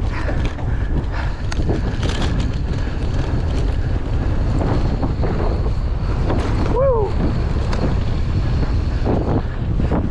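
Wind buffeting the camera microphone on a mountain bike descending a dirt trail at speed, with a steady low rumble and the constant clatter and rattle of the bike over rough ground. A brief squeak rises and falls about seven seconds in.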